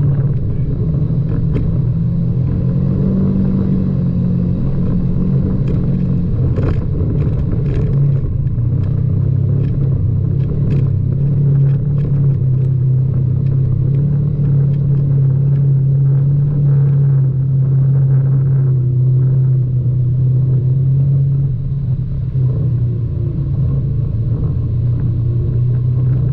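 Side-by-side UTV engine running steadily as it drives a rough dirt trail, its pitch a little higher for a few seconds early on. Scattered sharp knocks from the rocky ground under the tyres and suspension.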